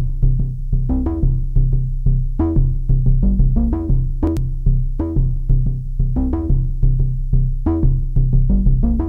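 Psychedelic space rock: a quick repeating figure of short, fading notes over a steady deep bass.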